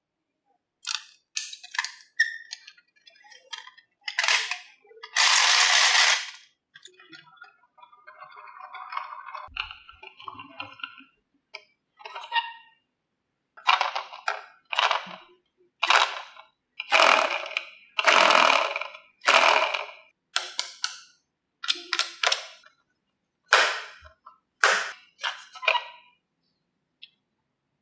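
Marbles clattering down a HABA wooden marble run: a string of sharp clacks and short rattles. A longer, softer rolling sound comes about eight to eleven seconds in.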